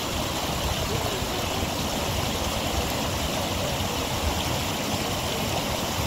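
Shallow spring-fed stream rushing over rocks and small rapids: a steady rush of water.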